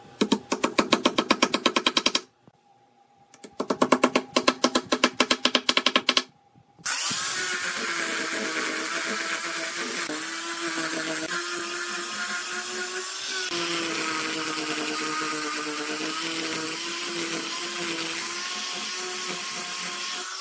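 Wooden mallet tapping a wooden bowtie key into its mortise in a board, in two quick runs of rapid taps. Then, about seven seconds in, an angle grinder with a sanding disc starts and runs steadily, sanding the inlay flush, its motor pitch wavering slightly under load.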